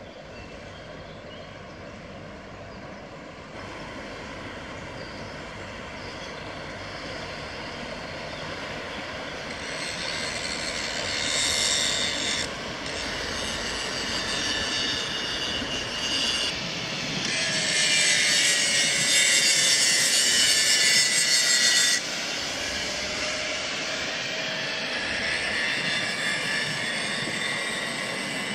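Inland cargo barge passing close by: the steady drone of its diesel engine mixed with the rushing hiss of water from its bow wave. It grows louder through the stretch, and the hiss breaks off suddenly twice.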